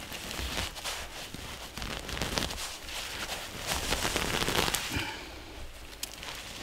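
Bare hands digging into snow and tearing up snow-covered moss from the forest floor: a dense run of small crunches and crackles.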